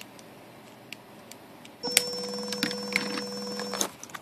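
Small electric drive motors of a hobby robot spinning its plastic wheels during a motor test: a steady hum with clicking starts about two seconds in and cuts off after about two seconds.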